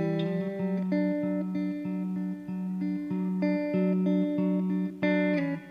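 Background music: a plucked guitar tune, its notes changing in a steady repeating pattern.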